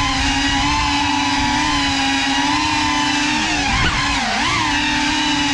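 GEPRC Cinelog 35 cinewhoop FPV drone's brushless motors and propellers whining steadily in flight. About four seconds in, the pitch dips and swings back up briefly as the throttle changes.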